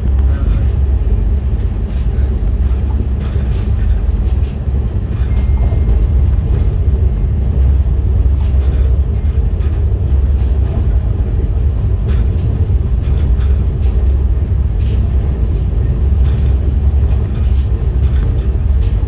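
Kochuveli–Sri Ganganagar Express passenger train running at speed, heard from on board: a loud, steady low rumble with faint clicks and knocks scattered irregularly through it.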